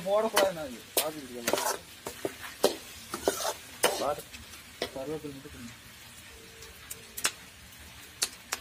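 A steel ladle scrapes and knocks against a metal kadai as sliced onions and tomatoes are stirred, frying in oil over a wood fire, with a steady sizzle underneath. The sharp clicks of the ladle come irregularly and grow sparser in the second half.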